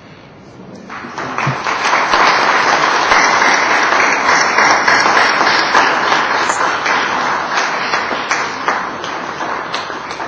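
Audience applauding, swelling about a second in and thinning to scattered single claps near the end.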